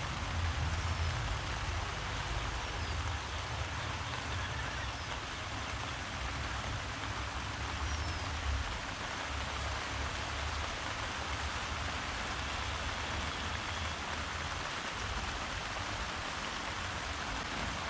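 Steady rain falling, an even hiss of many drops. A low rumble runs underneath and dies away about fifteen seconds in.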